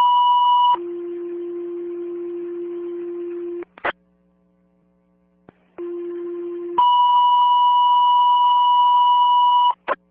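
Fire dispatch two-tone paging tones over a radio, sent twice: a short high tone followed by a longer low tone, then after a pause a short low tone followed by a longer high tone, with a radio click between the pages. This is the tone-out of a firefighter's last-alarm radio call.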